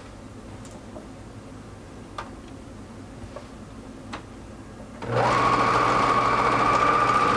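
Juki Pearl Line MO-654DE serger (overlock machine) starting about five seconds in and running steadily at speed, serging a seam in knit fabric. Before it, a few faint clicks of the fabric and machine being handled.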